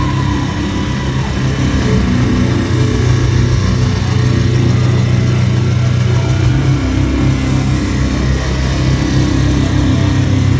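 Loud live music from the band on stage, heard through the venue PA: a steady, heavily distorted low drone.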